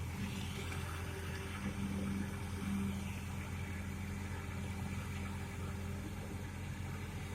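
Excavator's diesel engine running steadily as it digs mud and sand, its note swelling briefly about two and three seconds in.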